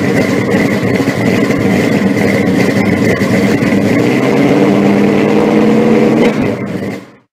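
An engine running loudly and steadily, dropping off about six seconds in and ending a moment later.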